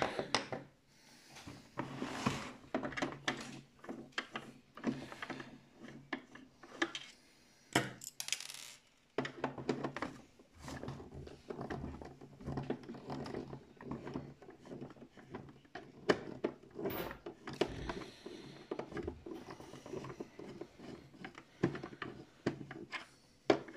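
Plastic hull of a toy RC tank being handled during a repair: a run of irregular clicks, taps and small knocks, with a brief lull about eight seconds in.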